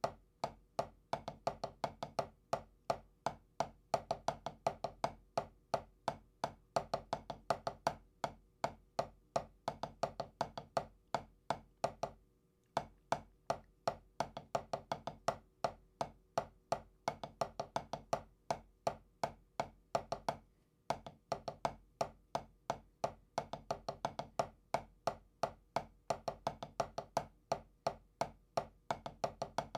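Drumsticks on a drum playing a steady run of even strokes, a double-stroke roll exercise, with regular accents and a faint ring under the strokes. It breaks off briefly twice, about twelve and twenty-one seconds in.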